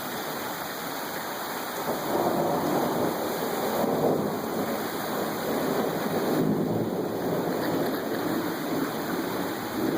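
Heavy rain pouring down in a steady hiss, growing louder about two seconds in.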